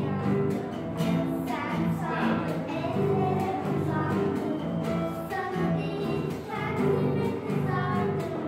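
Schoolgirls singing a song together with their own instrumental accompaniment: held accompanying notes under a wavering sung melody.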